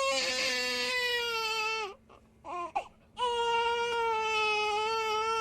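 Baby crying: one long, steady-pitched cry of about two seconds that drops in pitch as it ends, a short gasp for breath, then a second long cry.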